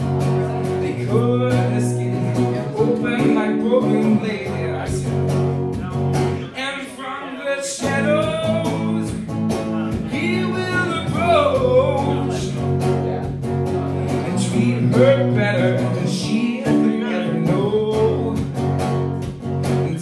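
A man singing a song, accompanied by a strummed acoustic guitar.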